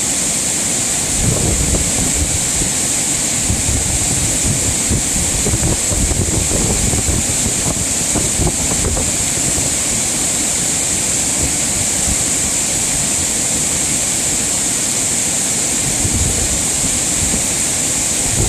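Mountain stream rushing steadily over rocks, a constant hiss of flowing water. Gusts of wind buffet the microphone with low rumbles now and then, mostly in the first half and again near the end.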